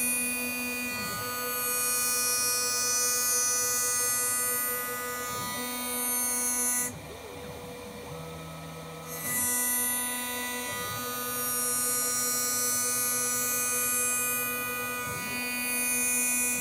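CNC router spindle running a single-flute 1/8-inch end mill through HDPE plastic during rest machining: a steady high whine with a hiss of cutting over it. The cutting hiss drops out for about two seconds around the middle while the spindle keeps running, then resumes, and short rising and falling pitch glides come from the axes repositioning.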